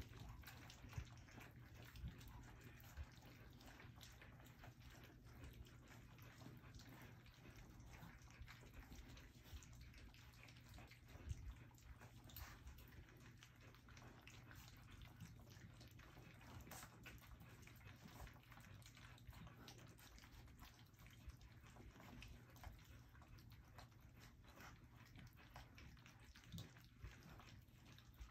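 A litter of nearly four-week-old puppies lapping and smacking at their first meal in a stainless steel saucer dish: faint, irregular wet licking and clicking, over a low steady hum.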